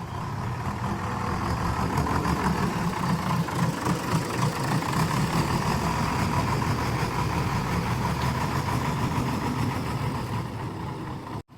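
Heavy diesel engine running steadily with a low, fast pulsing and a held whine, growing louder about a second in. The sound drops out abruptly for an instant near the end.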